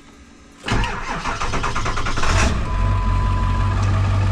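Ford 7.3-litre diesel V8 cranking with a rapid pulsing beat, catching after about two seconds, then settling into a steady idle.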